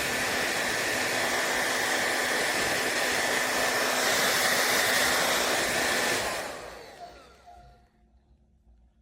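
Revlon Turbo 1875-watt hair dryer running with a steady blowing rush and a whine, switched off about six seconds in, its motor's whine falling as it spins down.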